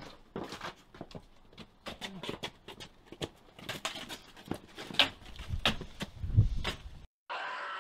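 Footsteps on paving stones and the scuffle of clothing and bodies as one person grabs another, with a few sharp knocks near the end of the struggle. It cuts off suddenly, and a high pitched cry with several tones begins just after.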